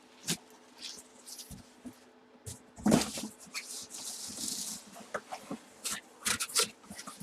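Handling noise: scattered taps, clicks and short rustles of objects being moved about, with a sharper knock about three seconds in and a longer sliding rustle just after.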